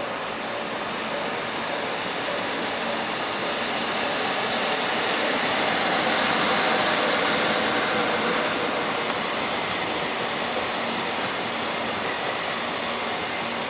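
Freight train of container wagons double-headed by two EF66 electric locomotives, running past. The steady rolling noise swells to its loudest about halfway through, then eases a little.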